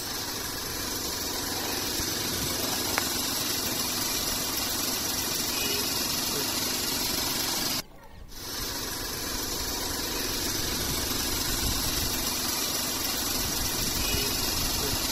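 Steady, even hissing noise, broken by a brief dropout about eight seconds in.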